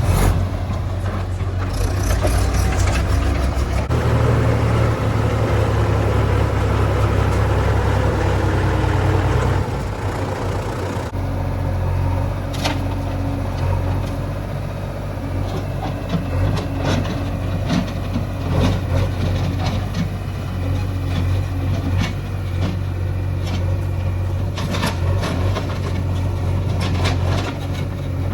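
Heavy diesel engine of earth-moving machinery running steadily, louder and working hard for the first ten seconds or so, then easing to a lower run. Sharp knocks and clanks sound intermittently in the second half.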